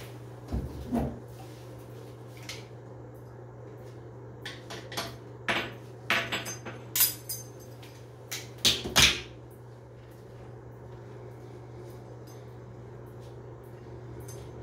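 Sharp metal clicks and clinks of a tub drain's trip-lever linkage rod and brass plunger being worked with pliers: a couple of clicks about a second in, then a scattered run of clicks in the middle, loudest near the ninth second, over a steady low hum.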